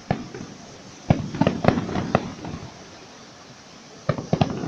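Fireworks bursting in volleys of sharp cracks and bangs: one bang right at the start, a rapid string of cracks about a second in, and another string beginning near the end.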